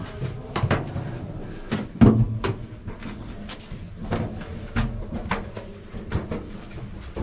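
Footsteps climbing a narrow stone spiral staircase: irregular boot knocks and scuffs on the stone treads, about one or two a second.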